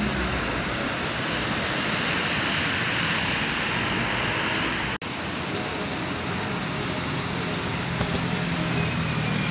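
Road traffic: buses and a car passing on wet tarmac, a steady hiss of tyres on the wet road, with a bus engine running low as it passes near the end. A momentary dropout about halfway through.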